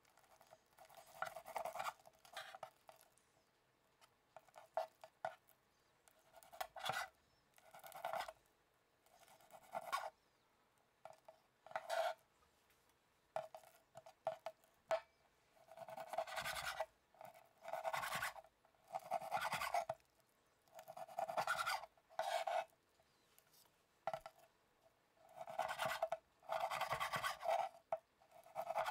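Chef's knife slicing and trimming raw chicken thigh on a wooden cutting board: short, irregular scraping strokes of the blade through the meat and against the board.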